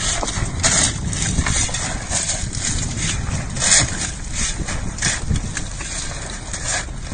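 Irregular clatter and splashing as handfuls of mussels are scooped off a small boat's deck and tossed into the sea, the shells knocking against the deck, over a steady low rumble.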